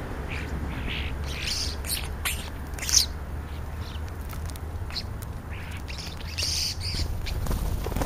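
European starlings calling: a scatter of short squawks, chirps and clicks, one sharper call about three seconds in.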